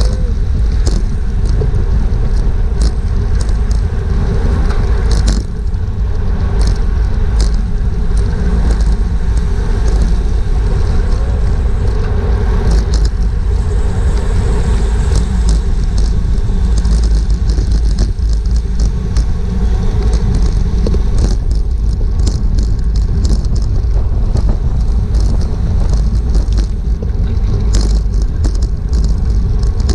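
Loud, steady wind rush and road rumble on the GoPro's microphone of a racing bicycle at speed, with frequent short clicks and rattles.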